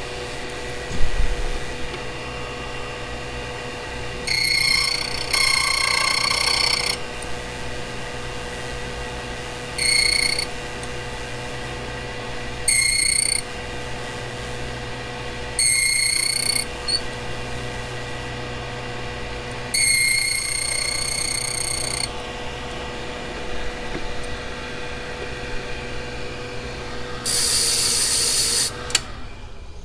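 A Master M10 key blank being cut on a Blitz key code machine: six separate high-pitched metal grating passes, each one to three seconds long, over a steady background hum.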